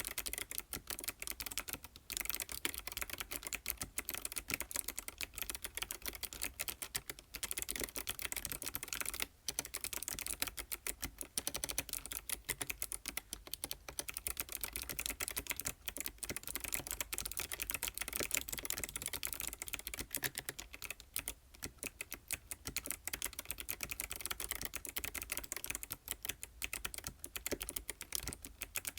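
ABKO ADK05 mechanical keyboard with white switches being typed on continuously: a rapid, dense run of key clicks, with brief pauses about two and nine seconds in.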